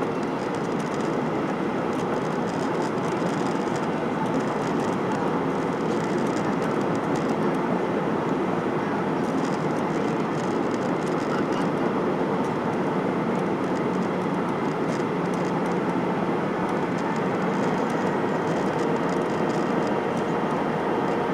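Steady cabin noise of a Boeing 737-800 in flight: the even rush of airflow and its CFM56-7B engines, with no change in level.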